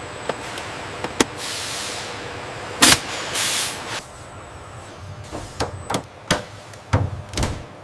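Car assembly work: scattered knocks and clicks of parts being fitted, one loud knock about three seconds in followed by a short hiss, then a quicker run of knocks near the end, over a faint steady hum.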